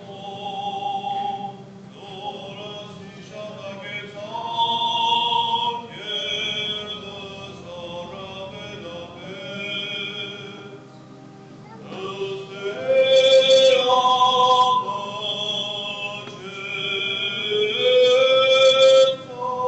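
Church choir singing a slow liturgical chant, the voices holding long notes and growing louder about two-thirds of the way through.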